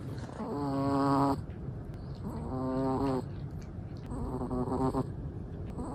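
Chihuahua snoring in its sleep: three pitched snores, each a little under a second long, about two seconds apart.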